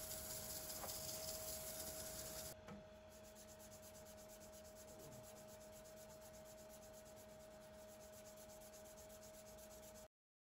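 Faint scratchy rubbing of sandpaper worked by hand over a stopped wooden bowl on the lathe, over a steady faint hum. A louder hiss drops away about two and a half seconds in, and all sound cuts off abruptly near the end.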